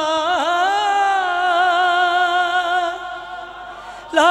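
A man sings a manqabat (Urdu devotional poem), holding one long drawn-out note with a brief waver that fades about three seconds in. A new sung phrase begins near the end.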